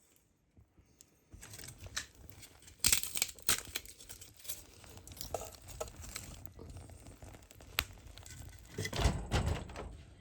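Rustling and crinkling with scattered light knocks and clicks, starting about a second in: things being handled by hand. The sharpest knock comes about three seconds in, and a louder cluster comes near nine seconds.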